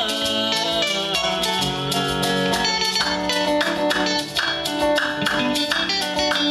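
Music: an instrumental passage of guitar lines played over a steady, even beat, with no singing.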